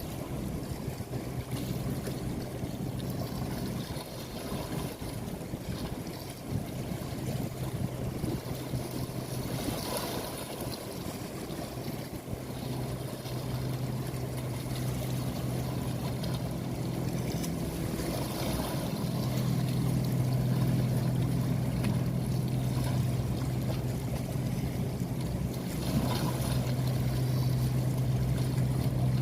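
A steady low motor hum over a constant rush of water and wind, like a motorboat under way. The hum gets a little louder about two-thirds of the way through.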